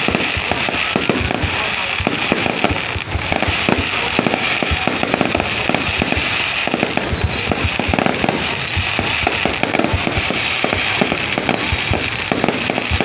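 Fireworks display: a dense, continuous run of bangs and crackles, many overlapping bursts at irregular intervals.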